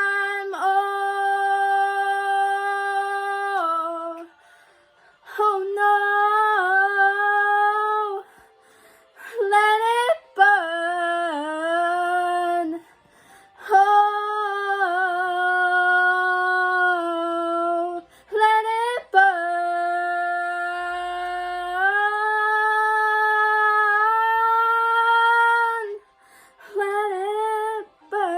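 A woman's voice singing long, held wordless notes with short sliding runs between them, pausing for breath every few seconds. No accompaniment is heard.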